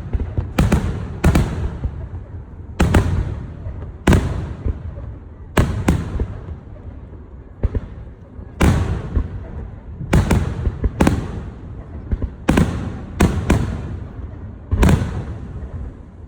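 Fireworks bursting: over a dozen sharp bangs at irregular intervals, sometimes two or three in quick succession, each trailing off in a rumbling echo.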